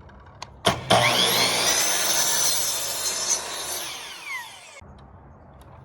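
Mitre saw switched on about a second in, its blade spinning up with a rising whine and cutting through a piece of wooden base trim. The whine then falls away as the blade winds down, and it stops abruptly near the end.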